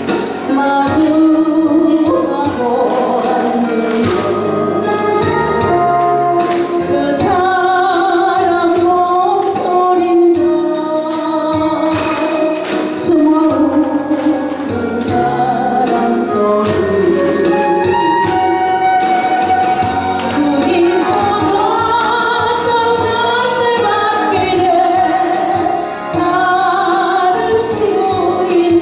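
A woman singing a song as an encore, over loud instrumental accompaniment with a steady beat.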